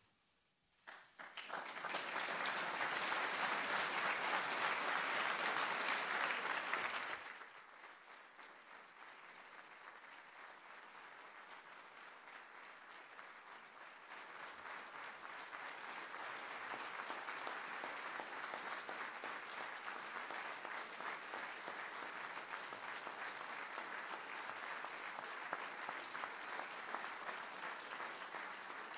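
Audience applauding. It starts about a second in and is loudest for the first six seconds, drops sharply about seven seconds in, then swells again and carries on.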